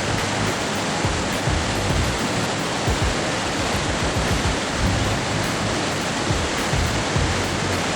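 Victoria Falls, the Zambezi's water crashing down into the gorge, heard as a steady, even rushing noise.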